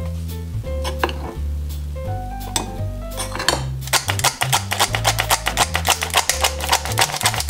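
A metal spoon scoops flour into a stainless steel flour sifter, knocking against its rim a few times. About halfway through, the sifter's squeeze handle starts being worked, making rapid, even metallic clicking. Background music with a steady bass line plays throughout.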